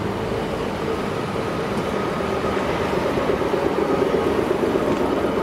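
Class 810 railbus diesel engine running as the railcar comes along the platform and passes close beneath, a steady drone with a held hum that grows louder near the end.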